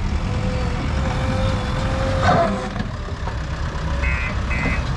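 JCB 3DX backhoe loader's diesel engine running under load while loading mud, with a steady whine of a second or two and a knock about two seconds in. Two short reversing-alarm beeps sound near the end.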